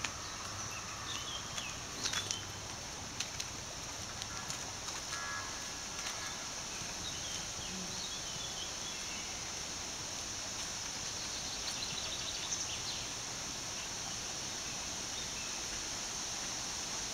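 Outdoor field ambience: a steady high hiss with scattered small bird chirps. A few sharp clicks come about two and three seconds in.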